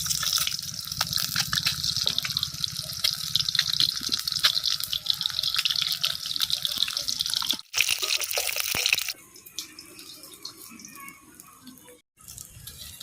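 Water running and splashing, full of small crackles and drips, dropping away after about nine seconds to faint scattered drips and clicks.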